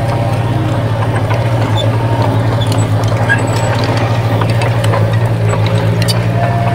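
Bulldozer's diesel engine running steadily under load, a low pulsing note, with scattered metallic clicks and clanks from the tracks and blade work.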